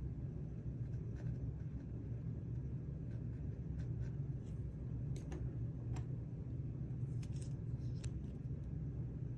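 A mechanical pencil's tip ticking and scratching faintly on a drawing panel in short, scattered strokes, over a steady low hum of room noise.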